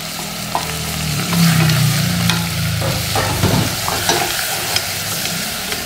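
Tiger prawn heads and shells sizzling in hot oil in a stainless steel saucepan while being stirred with a wooden spatula, with scattered knocks of the spatula against the pan. The shells are being sautéed as the first step of a prawn stock.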